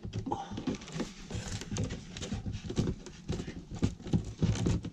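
Irregular knocking and rubbing of a tongue-and-groove pine cladding board being pushed and worked into place against the boards beside it on a ceiling.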